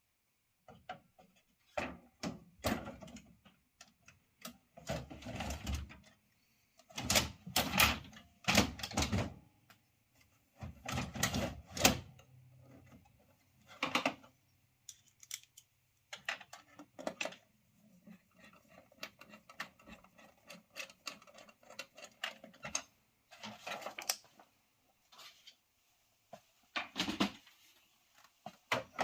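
Irregular plastic clicks, knocks and rattles from a Ricoh MP C306-series copier being reassembled by hand, in clusters with short pauses, the loudest a few seconds in.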